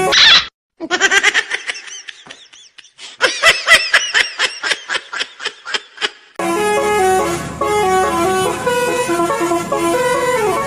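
Telolet bus horn: a multi-tone musical horn sounding rapid short toots, then from about six seconds in playing a continuous tune of changing notes.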